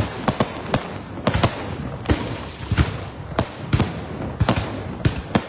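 Aerial fireworks display: shells bursting in quick succession, sharp bangs about three or four times a second at uneven spacing over a continuous background rumble and hiss.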